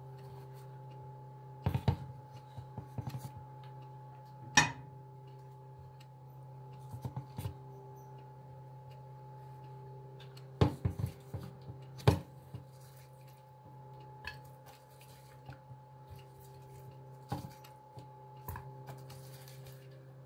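Raw chicken pieces being handled and moved from a plastic bowl into a glass baking dish: scattered knocks and clatters of the bowl and dish, loudest about four and a half seconds in and again around eleven to twelve seconds in, over a steady low hum.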